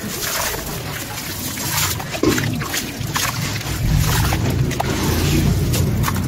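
Wet sand-cement chunk crumbling in hands, with grit and lumps pattering and splashing into a tub of water, then sloshing as the hands work the crumbled chunk in the water.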